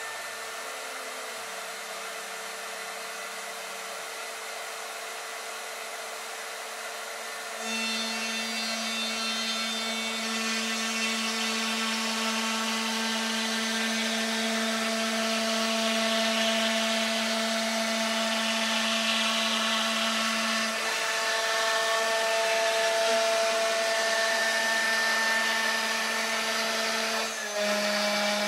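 CNC router running a cut in a wooden board: steady motor whine, joined about eight seconds in by louder cutting noise as the bit works the wood. The whining tones shift in pitch partway through as the machine changes moves, with a brief dip just before the end.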